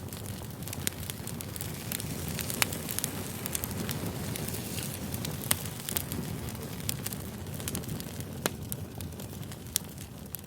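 Campfire burning: a steady low rush of flames with scattered sharp pops and crackles from the burning wood.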